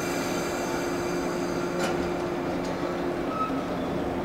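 JR West 115 series electric train standing at the platform on the point of departure, its onboard equipment humming steadily with several thin high tones over it. A single clunk comes about two seconds in.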